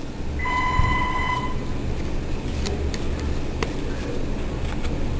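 An electronic tone sounds steadily for about a second near the start, over a constant low hum, with a couple of faint clicks later on.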